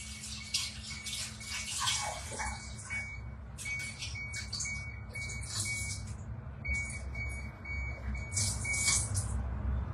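Kitchen tap running in uneven spurts as pistachios are rinsed under it, with a faint high whistle that comes and goes.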